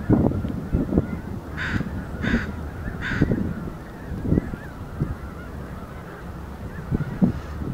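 Geese calling: three short honks between about one and a half and three seconds in, and a fainter one near the end, over steady low background noise.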